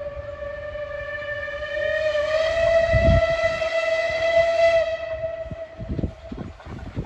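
Steam locomotive whistle: one long steady blast that grows louder and steps slightly higher about two seconds in and stops about five to six seconds in. A few low chuffs from the approaching engine follow near the end.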